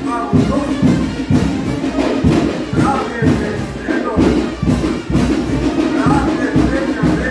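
Brass band playing chinelo dance music, with a steady beat of about two strong beats a second.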